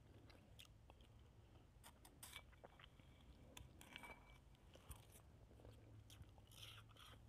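Faint, scattered crunching of soft shaved ice being chewed, with a spoon scooping the ice from a bowl.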